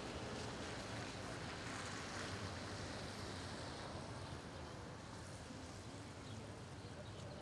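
Steady city-street traffic noise: an even hiss with a low engine rumble beneath it.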